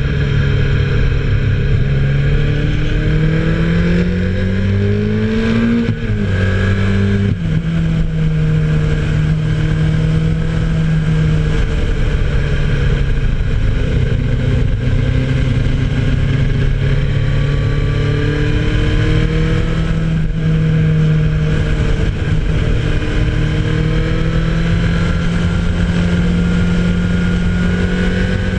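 Onboard sound of a vehicle's engine pulling along a road over steady wind and road rush. The engine note climbs over a few seconds, drops sharply with a gear change about seven seconds in, then holds fairly steady with small rises and falls.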